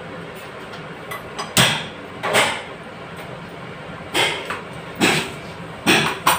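A series of sharp knocks and clacks in a kitchen, about six of them, some about a second apart, over a steady low hiss.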